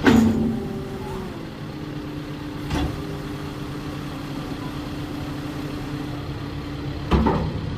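CAT 299D3 compact track loader's diesel engine idling steadily, with three short sharp knocks: a loud one at the start, a smaller one about three seconds in, and another loud one near the end.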